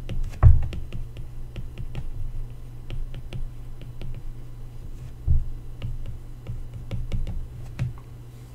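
Stylus tapping and scratching on an iPad's glass screen during handwriting: a string of small irregular clicks, with two heavier low thumps about half a second in and about five seconds in, over a steady low hum.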